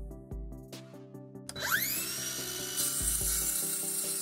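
Craftsman cordless circular saw spinning up with a rising whine about one and a half seconds in, then running steadily as the blade cuts into a pine board, over background music.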